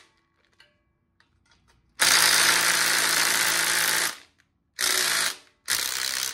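Small electric wrench spinning 9/16 nuts off a Ford 302 V8's exhaust manifold and emissions hardware: a run of about two seconds starting two seconds in, then two short bursts near the end, with a few faint clicks of parts being handled before.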